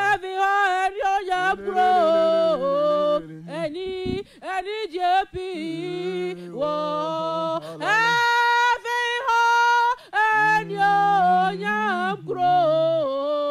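A woman singing a worship chorus unaccompanied, with long held notes that slide between pitches and brief breaths between phrases.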